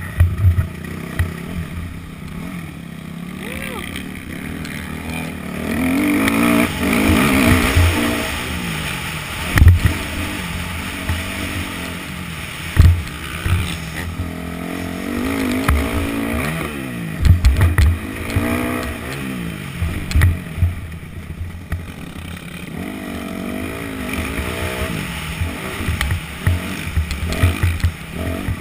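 Yamaha YZ250F single-cylinder four-stroke dirt bike engine revving up and down over and over as the rider accelerates and shifts around a motocross track. Wind rushes over a helmet-mounted microphone, with sharp low thumps as the bike hits bumps, loudest about ten and seventeen seconds in.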